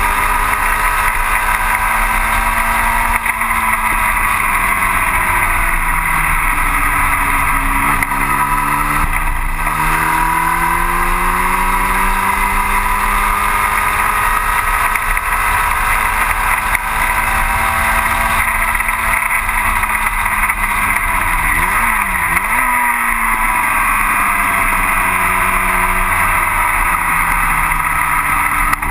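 1960 Cooper T-52 Formula Junior's engine at racing speed, heard from the cockpit over wind rush. The pitch drops as the car slows about three seconds in and again near the end, climbs back between, and quick throttle blips around the middle to late part mark downshifts.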